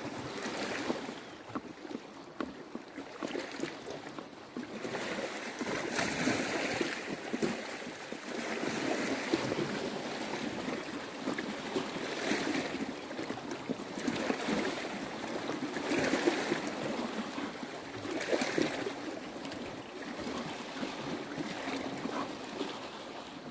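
Sea waves washing onto a rocky shore in surges every two to three seconds, with a few light knife taps on a wooden board.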